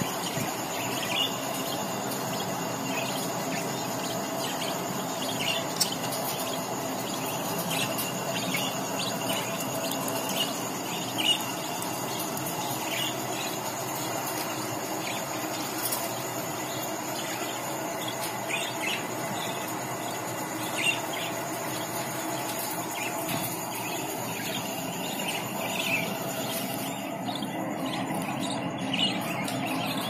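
Budgerigars chirping: short, high chirps every second or so over a steady background noise.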